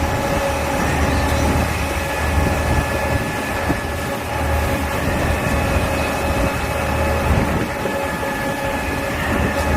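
KCP truck-mounted concrete boom pump running on site: a steady heavy diesel engine rumble with a steady whine above it.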